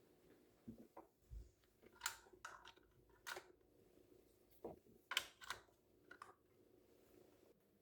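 A dozen or so soft, scattered clicks and light knocks, with a low thud about a second and a half in, over quiet room tone.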